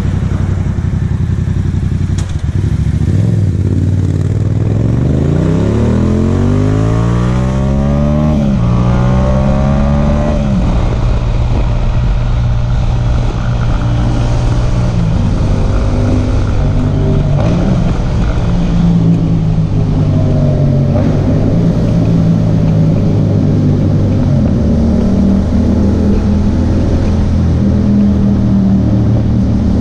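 Yamaha MT-07's parallel-twin engine accelerating, rising in pitch through the gears with upshifts about eight and ten seconds in, then holding a fairly steady pitch while cruising.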